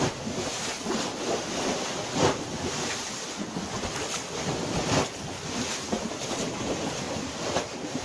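Small waves washing onto the beach from a calm sea, with wind noise on the microphone. There are a few louder splashes, about two and five seconds in.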